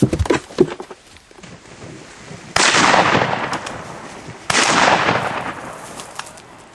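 Two loud shotgun blasts about two seconds apart, each ending in a long fading echo, preceded by a few sharp knocks at the start.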